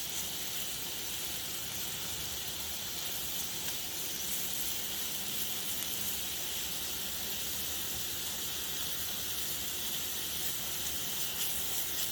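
Spice-rubbed chicken pieces frying in oil in a pan, with a steady sizzle.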